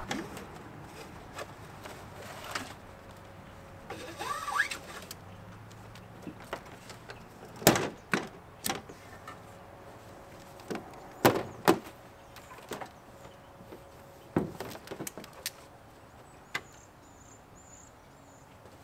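Ratchet tie-down strap being unhooked and pulled off a crash-damaged car front end: scattered clicks and knocks of the metal ratchet and hooks against the plastic and metal body, with a short squeak about four seconds in.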